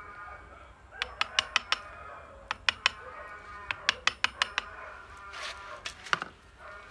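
Pruning shears snipping small twigs on a Siamese rough bush (Streblus asper) bonsai: sharp clicks in quick runs of three to six, about five a second, over background music with held tones. A short rustle comes near the end.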